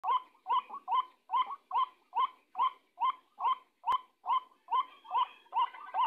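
White-breasted waterhen calling: a short, hoarse note repeated evenly about two and a half times a second, the lure call used to draw waterhens to a snare. A single sharp click just before the four-second mark.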